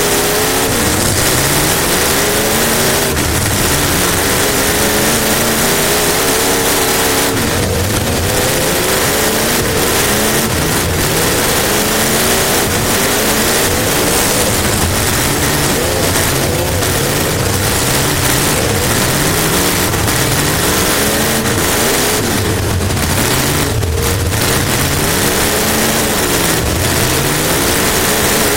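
Race car engine heard from inside the cockpit, revving up and dropping off over and over as the car laps, with constant wind and road noise.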